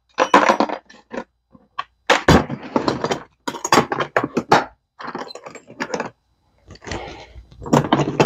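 Clear plastic organizer cases of screws and other small hardware being handled and set down: a string of hard plastic clicks, knocks and rattles, with a couple of short pauses.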